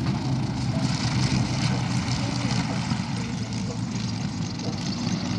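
Avro Lancaster bomber's four Merlin V12 piston engines and propellers running steadily as the plane rolls along the runway after landing.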